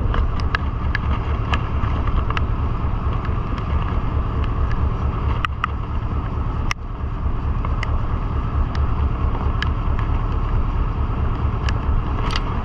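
Wind buffeting the microphone aboard a small fishing boat, over a steady low rumble, with scattered sharp ticks throughout and a brief dip about halfway.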